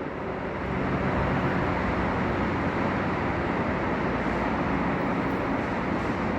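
A train running into the station: steady rolling noise with a faint low hum underneath, holding even after a slight rise about a second in.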